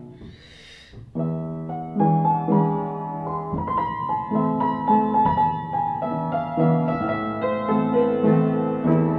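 Piano playing a flowing passage of chords over changing bass notes, entering about a second in after a short burst of noise.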